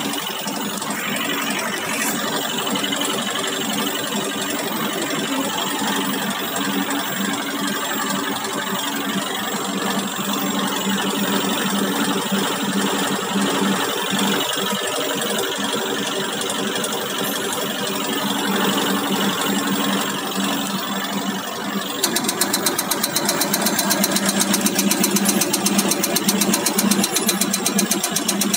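Diesel injector test bench running a HEUI injector test on a Caterpillar C7/C9 injector, its HEUI oil pump and drive running steadily. About 22 seconds in the sound turns slightly louder, with a fast, even ticking.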